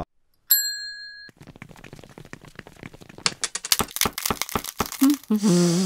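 A short electronic beep, then a long run of crackling, crinkling clicks that grows denser and louder from about three seconds in, and a brief voiced hum near the end.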